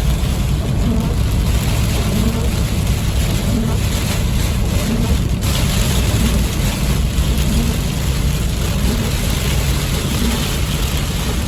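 Vehicle cabin while driving through heavy rain: a steady rumble of engine and road with a continuous hiss of rain and spray on the vehicle.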